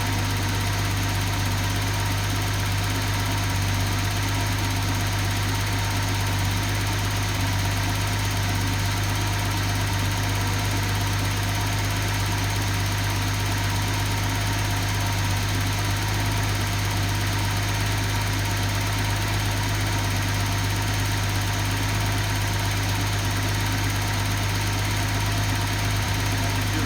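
Datsun 280ZX turbo's L28ET straight-six engine running steadily at idle on a test stand, with its muffler fitted.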